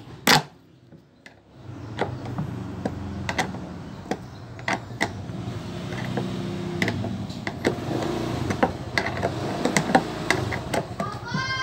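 8 mm ring spanner clicking and scraping on the bolts of a washing machine's plastic outer tub as they are undone one by one, with a sharp knock just after the start. Under it runs a low steady mechanical hum, and a cat meows briefly at the very end.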